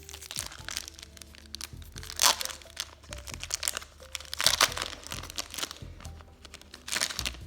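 Foil wrapper of a Pokémon trading-card booster pack crinkling and tearing as it is opened, in three loud bursts, over background music.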